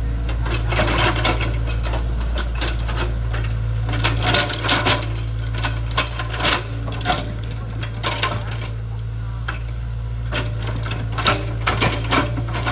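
Hydraulic excavator at work: its engine running steadily as a low hum, under many irregular metallic clanks and rattles, some in quick clusters.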